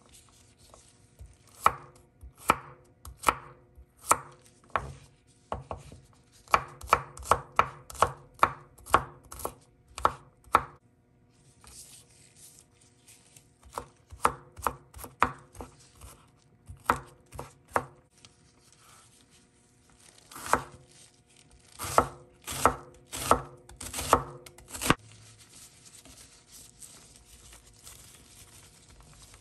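Chef's knife chopping garlic cloves on a bamboo cutting board: sharp knocks of the blade on the wood, in quick runs with short pauses. Near the end the knocking stops.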